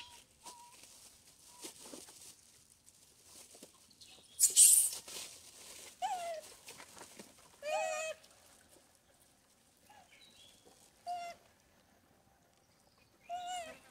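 Macaques giving short, high-pitched calls several times, some bending down in pitch. About four and a half seconds in, a loud brief crinkle, like a plastic bag being handled.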